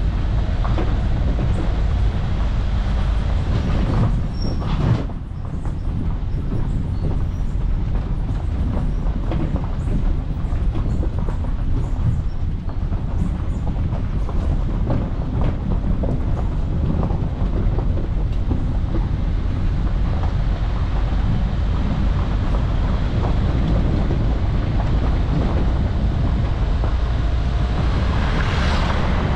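Car driving, heard from inside the cabin: a steady low rumble of engine and tyres on the road, with frequent small rattles and knocks.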